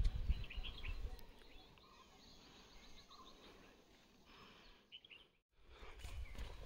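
Wind buffeting the microphone at first, then faint, scattered short bird chirps over quiet outdoor air. The sound cuts out briefly about five and a half seconds in, and low thudding footsteps start near the end.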